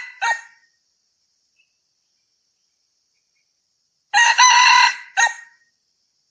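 Red junglefowl cock crowing. The clipped tail of one crow comes right at the start. About four seconds in comes a full crow: a long note that breaks off into a short final note.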